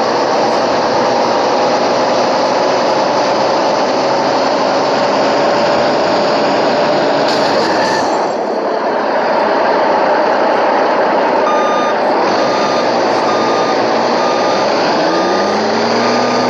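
A heavy vehicle's engine running loudly, its pitch slowly rising over the first half. A reversing alarm then starts about two-thirds of the way in, beeping at one pitch roughly once a second.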